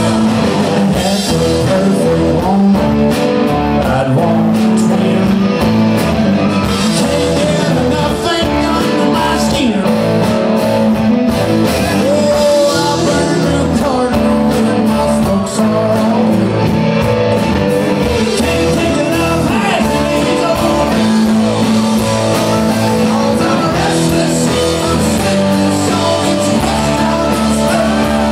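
A live rock band playing loud and steady: electric guitars, bass guitar and drums under a sung lead vocal.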